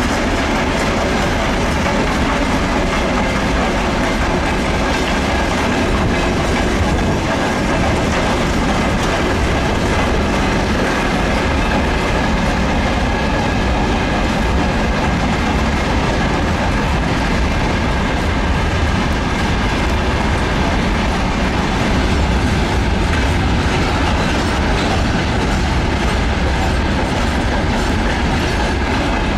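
Freight train hauled by an ER20CF diesel locomotive rolling steadily past, its wagon wheels clacking over the rail joints.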